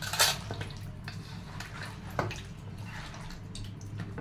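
Hands sloshing and squelching raw chicken pieces in water in a metal bowl while rinsing them, with louder splashes about a quarter second in and again about two seconds in, over a steady low hum.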